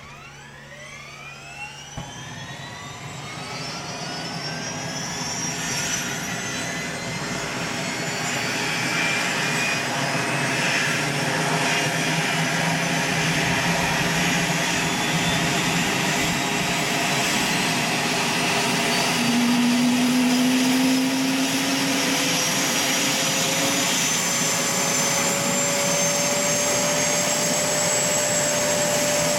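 Airbus H125 helicopter's Arriel turboshaft engine starting up: a whine that sweeps steeply upward in pitch as the turbine spools up and the main rotor accelerates, growing louder over about the first ten seconds. It then runs steadily with a high whine, a lower tone still creeping up in pitch near the end as the rotor gains speed.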